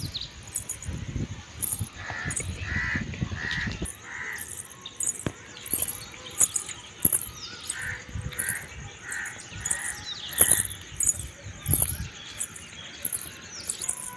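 Crows cawing in two runs of about four calls each, over a steady train of high chirps about twice a second. A low rumble sits under the first few seconds.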